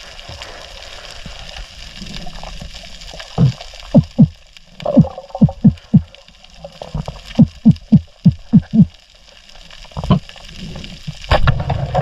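Underwater sound picked up by a diver's camera over a reef: a steady hiss, with a string of short, low thumps that come in quick runs of about three a second.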